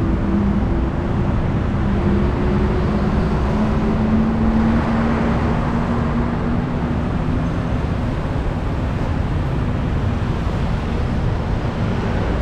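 Heavy city road traffic: vehicle engines running close by, with a steady low engine hum that fades about eight seconds in and one vehicle passing louder about five seconds in.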